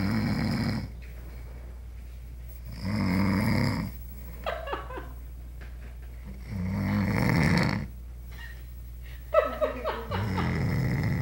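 A sleeping pet snoring, four snores of about a second each, spaced about three and a half seconds apart. A few short, scattered sounds fall between the snores, with a sharp one just before the last snore.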